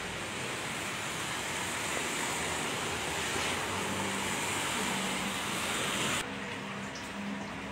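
Street traffic on a wet road: a steady hiss of tyres on wet asphalt with passing vehicles, a bus among them. It cuts off abruptly about six seconds in, leaving a quieter steady hum.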